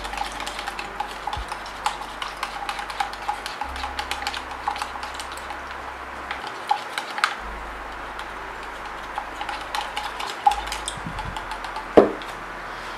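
A stick stirring fabric paint thinned with alcohol in a plastic jar, clicking and scraping against the inside in quick irregular strokes, busiest in the first half. One sharper knock near the end.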